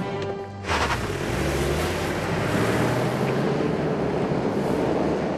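An SUV's engine starts pulling hard about a second in, with a dense rush of tyre noise on the unpaved yard as the car drives away.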